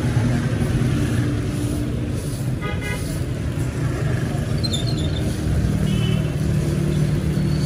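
Street traffic: a steady engine rumble with brief horn toots, one about three seconds in and more around five to six seconds.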